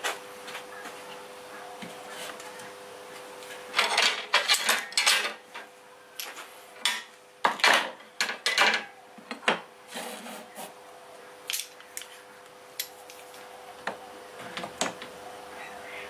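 Aluminium angle and steel locking pliers being handled against an aluminium and MDF fridge-slide frame while the angle is clamped in place: irregular metallic clinks, knocks and clatters, coming in clusters about four seconds in and again around the middle, then sparser. A faint steady hum runs underneath.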